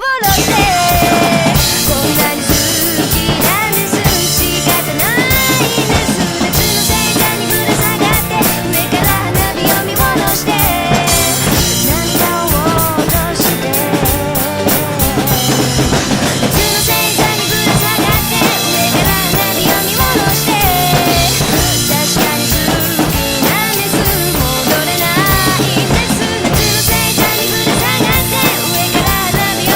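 Drum kit (kick, snare with rimshots, cymbals) played along to a recorded J-pop band track, a steady loud rock beat over the song.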